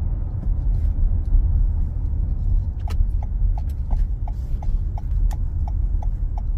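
Steady road and engine rumble heard inside a moving car's cabin, with a turn-signal indicator starting to tick about three seconds in, about three clicks a second.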